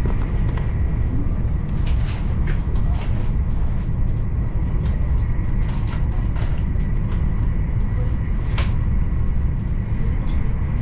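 Steady low rumble of a high-speed train running, heard from inside the passenger cabin, with a faint steady high tone and a few light clicks and rattles.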